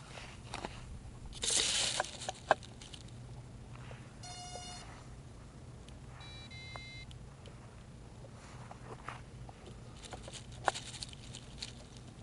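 Two short electronic beeps, one about four seconds in and a two-part one about six and a half seconds in, over a steady low hum. A brief rustle and a sharp click come near the start, and another click comes near the end.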